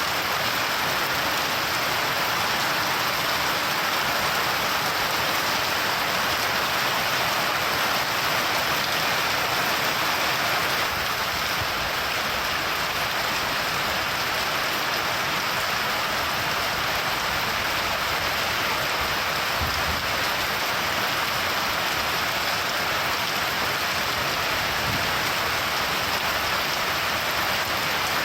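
Steady, heavy rainfall: an even, unbroken hiss of rain.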